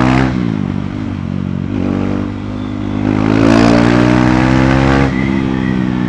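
A KTM Duke 390's single-cylinder engine through its stock exhaust, heard on the move under acceleration. Its pitch climbs, dips about two seconds in and climbs again, then drops sharply about five seconds in and runs steady.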